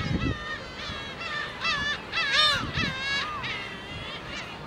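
Black-tailed gulls calling, many short arched mewing calls overlapping one another from the flock, loudest about halfway through.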